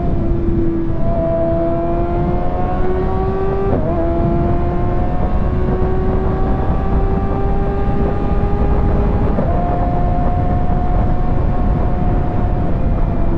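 Kawasaki ZX-6R 636 inline-four engine and exhaust pulling at high revs, its pitch climbing slowly, with a short break in pitch about four seconds in and another step about nine seconds in, over heavy wind rush.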